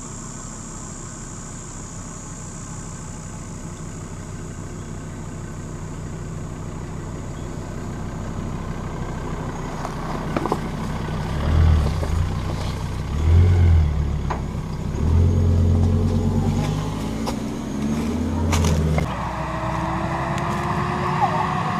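Four-wheel-drive vehicle engine running and drawing nearer, then revved hard in several surges, rising and falling in pitch, as it pulls through soft sand. A few sharp knocks are heard along the way.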